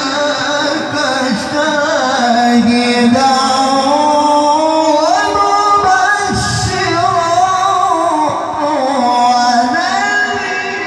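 A male qari chanting Arabic recitation in the melismatic tilawah style into a microphone over a PA system: long held notes with wavering ornaments, stepping up in pitch about halfway through.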